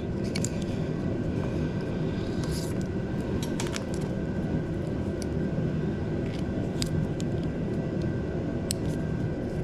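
Steady drone of a space heater's fan running, with scattered light clicks of small parts being handled as a throttle cable end is worked into the throttle grip's sleeve.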